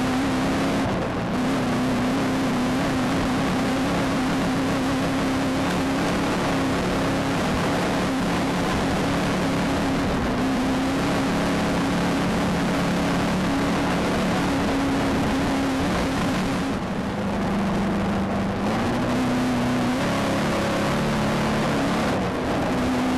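VW Beetle off-road race car's engine running hard at speed, heard from inside the car, under a constant rush of noise. The engine note drops briefly about a second in, for a couple of seconds about three quarters of the way through, and again near the end, as the revs come off and pick up again.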